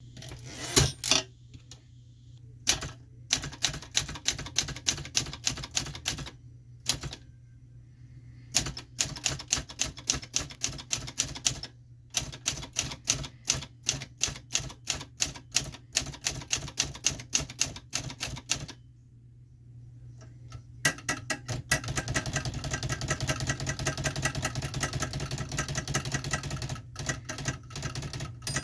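Everest K2 manual typewriter being typed on: runs of key strikes at about four to five a second, broken by short pauses, then a denser, faster run of typing in the last third.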